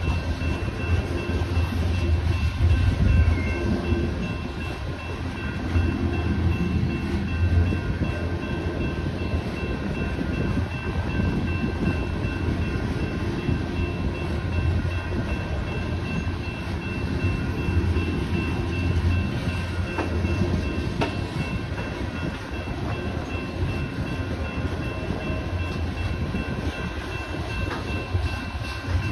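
Loaded coal hopper cars of a freight train rolling past at speed: a continuous low rumble and clatter of steel wheels on the rails that swells and eases every few seconds as the cars' trucks go by.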